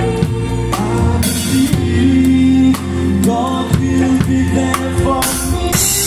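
Live band playing a song with a singer, hand drums (congas and bongos) and a drum kit. Cymbals get louder near the end.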